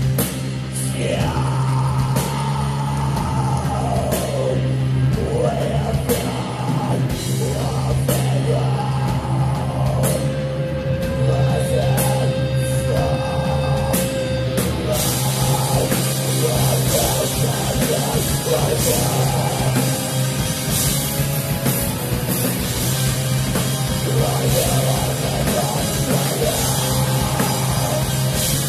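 A post-black metal band playing live and loud: distorted guitars over a held low bass note and busy drumming, with pitch lines that swoop up and down above. About halfway through the cymbals get denser and brighter.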